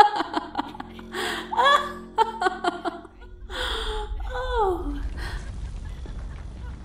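A woman gasping and letting out breathy, wordless exclamations and little laughs, over a low rumble that comes in about halfway through and keeps going.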